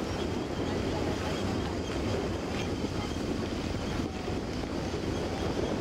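Small inflatable boat (RIB) underway at low speed: a steady low motor rumble mixed with water washing along the hull and wind buffeting the microphone.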